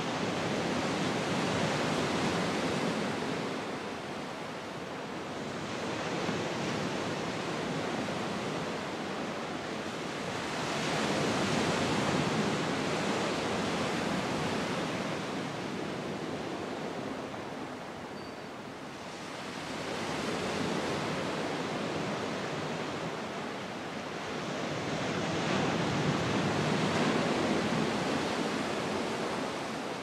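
Sea surf breaking and washing up a beach: a steady hiss of noise that swells and eases with each wave, every five to eight seconds or so.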